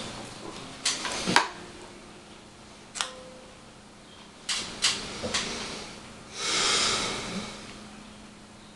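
Handling noise as an electric guitar is picked up and settled on the lap: scattered knocks and clicks, then a short rustle about six and a half seconds in, over a faint steady hum.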